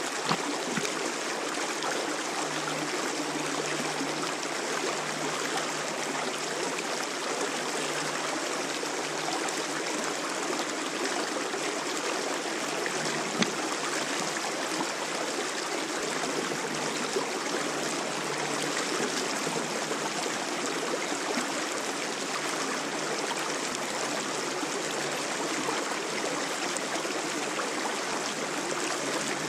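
Steady rushing of shallow running water, with one short sharp tick about halfway through.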